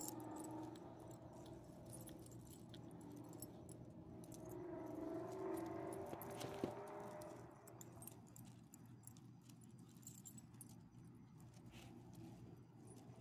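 Dog collar tags and metal leash clips jingling lightly in small irregular clinks as leashed dogs sniff around, with a faint low hum in the background that swells about halfway through.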